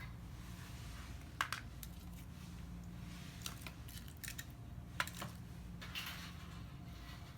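Light clinks and knocks of small hard objects being handled, a handful of sharp taps spread irregularly over a few seconds against a steady low hum.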